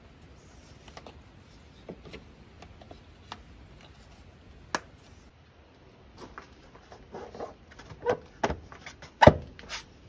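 Scattered clicks and knocks of plastic and metal parts being handled in a car's engine bay. They are sparse at first and come thicker in the second half, with the loudest knock near the end.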